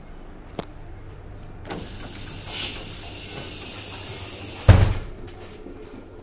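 Train carriage doors. A steady carriage hum runs underneath, and a small click comes just after the start. A powered interior sliding door hisses for about three seconds, then a door closes with a loud thump near the end.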